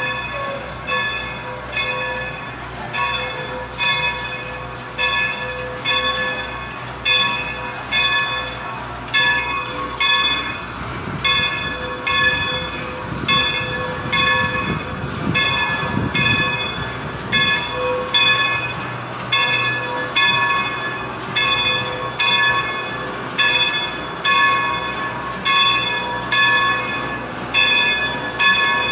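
Bell of a 1925 Baldwin 2-8-0 steam locomotive ringing steadily, about one strike a second, as the locomotive moves through the station. A low rumble rises for several seconds in the middle as the engine passes close.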